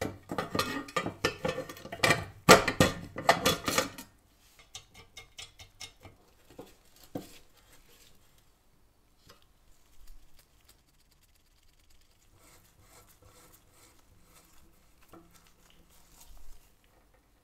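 Rapid clinking and rattling of the stove's metal parts, cast iron and brass, while they are handled, loudest over the first four seconds. After that come sparse, faint clicks as a small screw is driven into the frame with a screwdriver.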